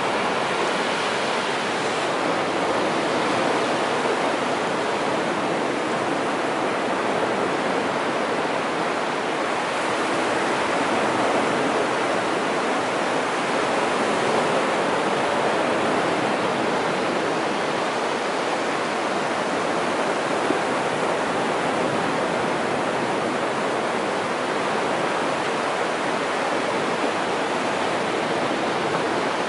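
Surf on a flat sandy beach: small waves breaking and washing up the sand, heard as a steady rushing hiss.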